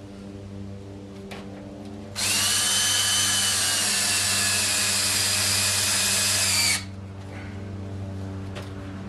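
Cordless drill driving a deck screw into a wooden 2x4 upright: one continuous run of about four and a half seconds starting about two seconds in, its whine dropping slightly in pitch before it stops abruptly.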